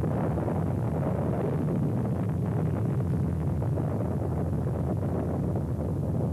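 Steady low rumble of the RDS-1 atomic bomb explosion, 22 kilotons, tape-recorded about 11 km away as the shock wave arrives. No single bang, just an even, deep rumble.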